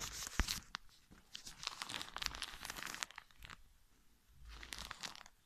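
Crinkling and rustling of a plastic ostomy pouch and shirt fabric being handled close to the microphone, with scattered clicks. A long stretch of rustling, then a lull and a shorter burst near the end.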